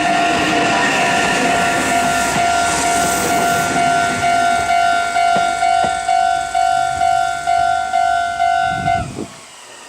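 Japanese railway level crossing's electronic warning bell ringing in steady pulses, about two a second, over the noise of a Meitetsu 3150 series train running past in the first few seconds. The bell cuts off suddenly about nine seconds in, which means the train has cleared the crossing.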